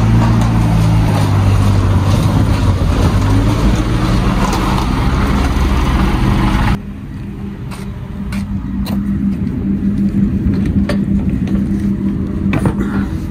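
Truck engine running close by with a steady low hum. About seven seconds in, it drops abruptly to a quieter steady hum, over which come scattered short clicks and knocks of metal as the curtain-side trailer's tensioning pole and curtain are handled.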